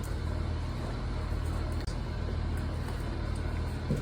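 Steady low background rumble with a constant hum.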